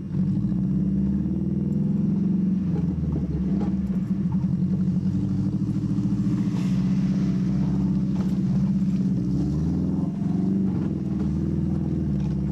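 Subaru flat-four engine running steadily, heard from inside the cabin while driving across a rough grassy field, with light rattles and clicks over the bumps.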